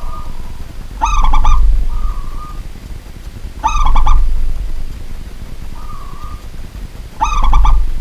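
Zebra dove (perkutut) cooing: three calls about three seconds apart, each a quick stuttering run of soft pitched notes. Fainter, shorter notes sound between the calls.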